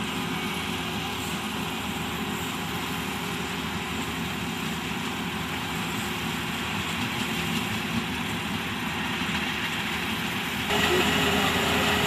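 Half-feed (head-feeding) paddy combine harvester running steadily while harvesting rice: a steady engine hum under machinery noise. About eleven seconds in, the sound jumps suddenly louder with a different, harsher machine running.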